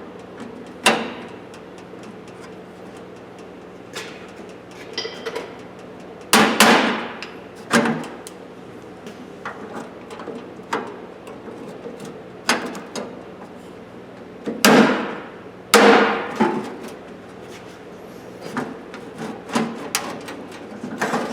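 Irregular knocks and clanks of the steel drawers of an old Craftsman toolbox being worked loose and pulled apart, some strikes followed by a brief ringing or scraping tail. The loudest come about six, fifteen and sixteen seconds in.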